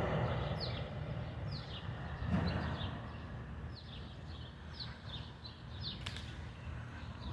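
Birds chirping: short, high notes, each sliding downward, repeated about once a second over a low, steady background rumble.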